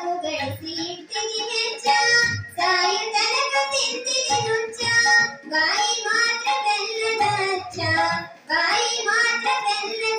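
A high voice singing a Kannada tatvapada (mystic devotional song) in long melodic phrases. It is accompanied by a harmonium holding a steady note beneath the voice and low tabla strokes.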